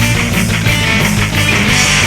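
Fast punk rock music with distorted electric guitar and drums, loud and steady.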